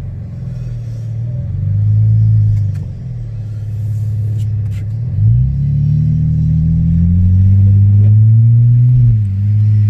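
Dodge Charger's engine heard from inside the cabin while driving, its pitch rising and falling with the throttle. About five seconds in it climbs sharply and keeps rising as the car gathers speed, then dips quickly near the end and holds steady.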